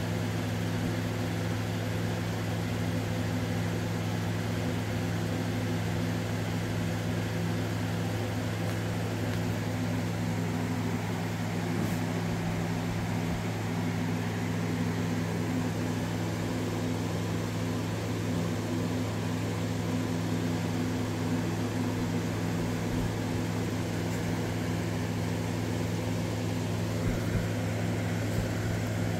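Window air conditioner running with a steady low hum.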